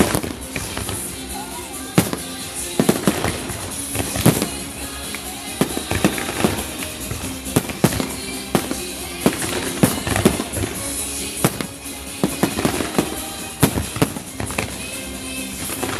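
Aerial fireworks going off throughout, sharp bangs and cracks at irregular intervals, often several within a second, over music played with the display.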